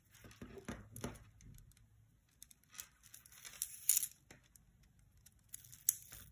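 Small plastic pony beads on a kandi cuff clicking lightly as it is handled. There are short rasping swishes as the string is drawn through the beads, the loudest about four seconds in and again near the end.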